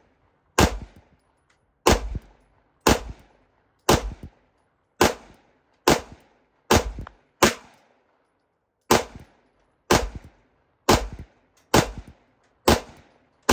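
Beretta M9 9mm pistol fired in a steady string of about a dozen shots, roughly one a second, each with a short echo trailing off.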